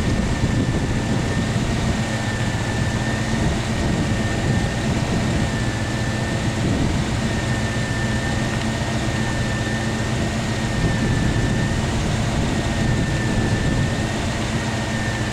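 Vehicle engine and drivetrain running steadily on the move, a low hum with a faint high whine that wavers slightly in pitch.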